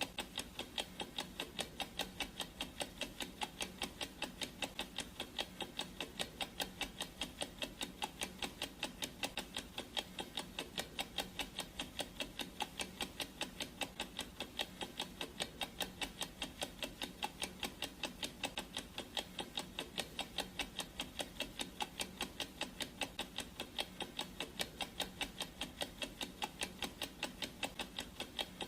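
Clock-ticking sound effect: sharp, even ticks, several a second, at a steady pace.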